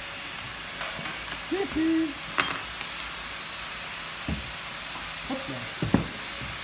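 A few sharp clicks and knocks of a small hand tool on a small part at a workbench, over a steady background hiss, with a short pitched sound about two seconds in.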